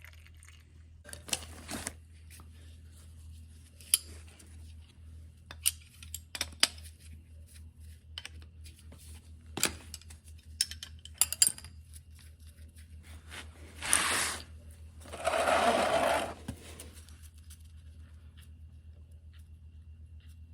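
Metal tools clinking and knocking against oil burner parts, over a steady low hum. Two louder hissing or rubbing noises of about a second each come near the end.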